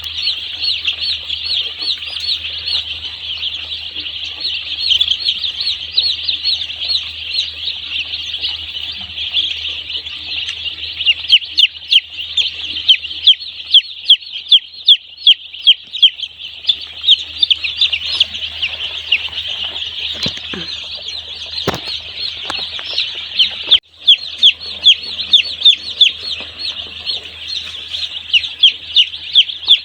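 A crowd of day-old chicks peeping constantly in a dense, high-pitched chorus. After the first few seconds, single loud peeps stand out from it several times a second.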